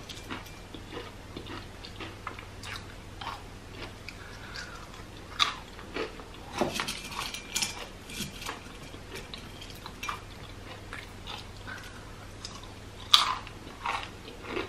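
Close-miked crunching and chewing of crisp plantain chips: irregular crackles as the chips are bitten and chewed, with a few sharp, louder crunches, the loudest near the end.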